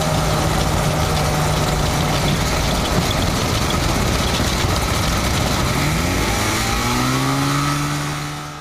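Kitfox light aircraft's engine and propeller running, heard from inside the cockpit as the plane rolls over the ground. The engine note rises about six seconds in, and the sound fades out near the end.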